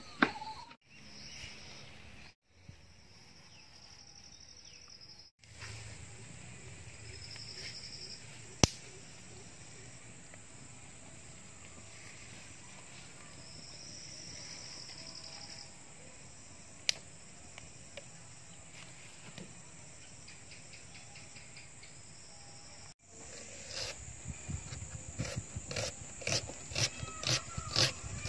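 Night insects trilling, high-pitched stretches coming and going over a quiet outdoor background. In the last few seconds, a run of irregular crisp clicks from a knife slicing through a red onion held in the hand.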